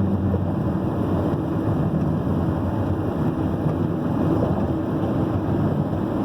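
Steady rumble of a vehicle moving along the road: engine and tyre noise, even throughout.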